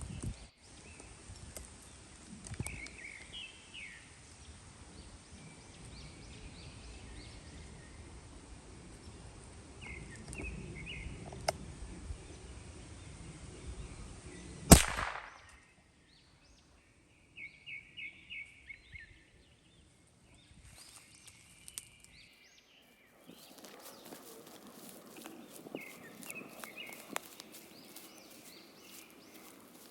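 A single Ruger 10/22 rifle shot about halfway through, sharp and by far the loudest sound, with birds chirping on and off around it.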